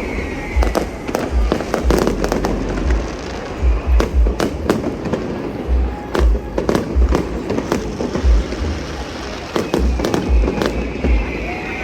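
Fireworks display: aerial shells bursting in a rapid, irregular barrage of booms and cracks, often several a second, with music playing underneath.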